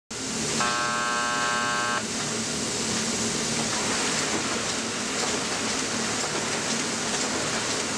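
Printing press running steadily, with a faint regular tick about once a second. A warning buzzer sounds for about a second and a half, starting about half a second in.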